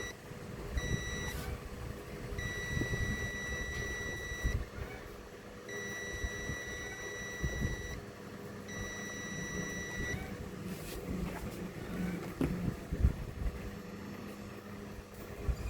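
Digital multimeter in continuity mode beeping four times in a steady high tone, the beeps lasting from about half a second to two seconds, with faint clicks of the test probes between them. The beep signals a possible short circuit, and it marks the SMD Schottky diode on the TV's power board as shorted.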